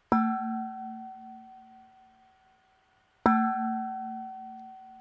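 Metal water bottle struck twice with a mallet, each stroke ringing like a distant bell: a low hum that wobbles as it fades over two to three seconds, with higher ringing tones above it.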